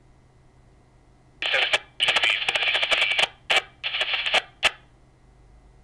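A voice test call received over a Baofeng UV-5R handheld radio on UHF and played through its small speaker, tinny and noisy. It starts about a second and a half in, in several bursts, and ends with a short burst near the end.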